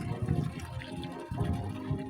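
Music playing with held notes, over water sloshing and low, uneven rumbles.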